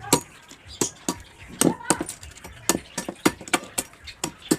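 A piece of wood being chopped to length for a tool handle: sharp, irregular knocks of a blade striking wood, about three a second, some with a brief ring.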